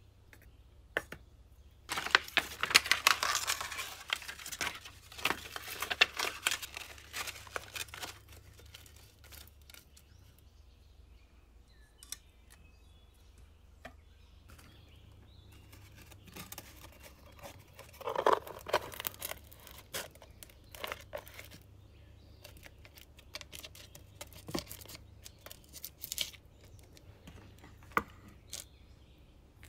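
Crinkling and rustling of paper or packaging handled on a worktop, loudest in the first several seconds, then scattered light clicks and taps and one short scrape as a steel cake ring and a wafer sheet are set in place on a cake board.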